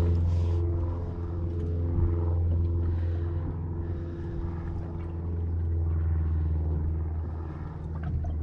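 Yamaha outboard motor idling steadily, a continuous low hum.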